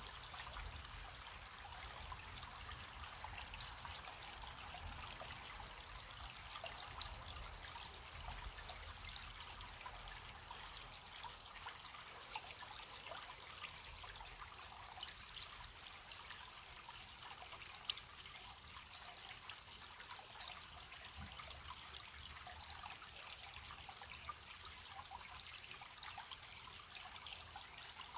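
A gentle stream trickling steadily over stones, with crickets chirping in a steady, even, high-pitched rhythm. There is one brief tick about two-thirds of the way through.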